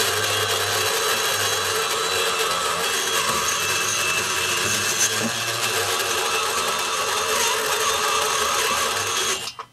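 Dental lab micromotor with a straight handpiece spinning a carbide burr, grinding out the intake port of a chainsaw cylinder: a steady whine over a rough grinding noise that cuts off sharply near the end.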